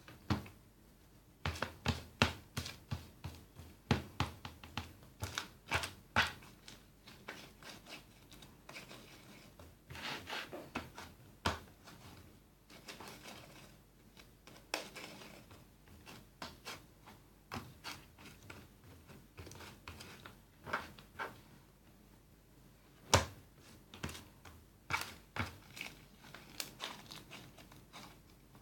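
Homemade glitter-glue slime being squeezed and pressed by hand, popping its air bubbles in irregular runs of sharp clicks and crackles.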